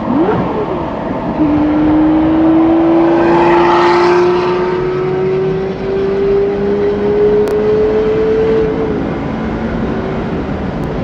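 First-generation Lamborghini Murciélago's 6.2-litre V12 with a Power Craft exhaust: a quick rev up and back, then a long hard pull with the engine note rising steadily for about seven seconds before it backs off. Heard from inside a following car.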